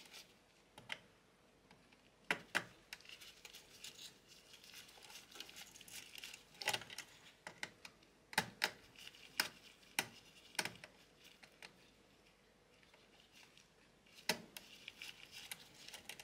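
Faint, scattered clicks and rustling as gloved hands pull wires and cable connectors free from a 3D printer's mainboard, with a quieter stretch of a few seconds before one last click.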